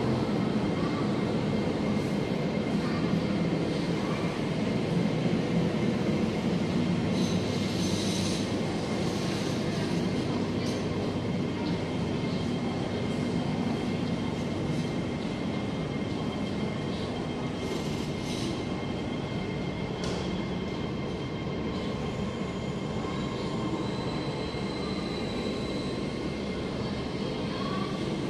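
Steady rumble and hiss of an underground metro station platform, with a faint steady high whine, slowly growing quieter. Two brief hisses stand out about 8 and 18 seconds in.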